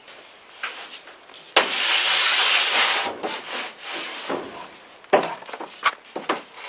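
A harsh rubbing or scraping noise starts suddenly about a second and a half in and lasts about a second and a half, followed by a few sharp knocks near the end.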